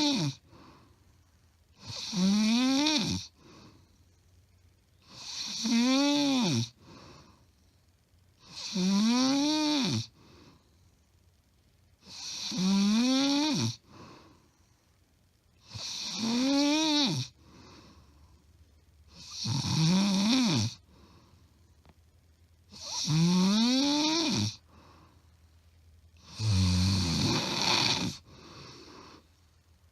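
A woman snoring loudly, recorded close up: a pitched snore that rises then falls in pitch, repeating about every three and a half seconds with quiet gaps between. One snore near the end is lower and rougher. Her husband says it is not sleep apnea, just loud snoring.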